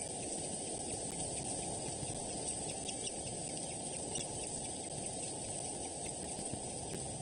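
Steady outdoor background hiss with a few faint, high bird chirps about three to four seconds in.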